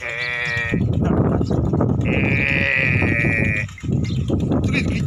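Tharparkar cattle in a moving herd calling twice: a short call at the start and a longer, higher-pitched call about two seconds in, over steady low background noise.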